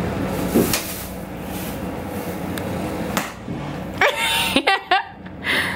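A few sharp knocks as someone swats at a spider on the ceiling, with a short, wavering high-pitched cry about four seconds in.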